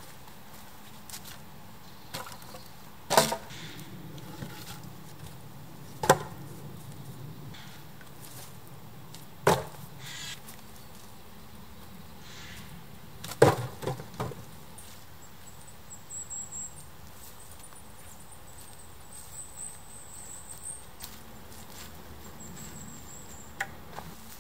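Damp firewood logs set down hard onto a stack of logs, wood knocking on wood: four loud knocks a few seconds apart in the first half, with lighter knocks between them.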